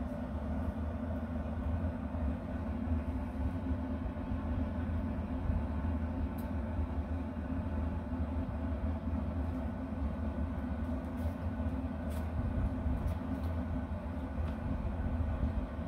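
Wind buffeting the microphone outdoors: a steady, low, fluttering rumble.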